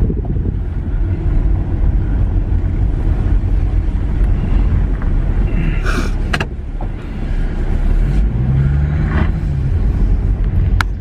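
Car driving slowly, heard from inside the cabin: a steady low engine and road rumble, with a few sharp clicks about six seconds in and again near the end.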